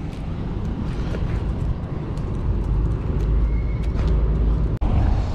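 Low, steady rumble of a passenger ferry's engines coming in close, growing louder about halfway through, with a few faint clicks over it.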